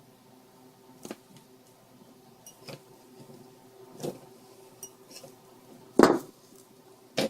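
Hand wire cutters snipping and clicking on thick power-cord wire: five sharp clicks spread out, the loudest about six seconds in and another just before the end, over a faint steady hum.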